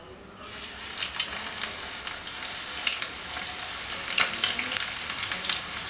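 Lumps of egg pakoda batter dropped into hot oil and frying. The sizzle starts about half a second in and carries on as a steady hiss with many sharp crackles as more pieces go in.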